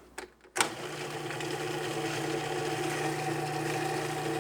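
A countertop electric blender-type appliance switched on about half a second in after a couple of clicks, its motor then running steadily as it purées a sour cream and avocado sauce.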